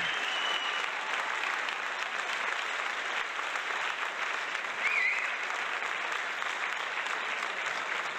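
Audience applauding and cheering as a live rock song ends, with a short whistle about five seconds in.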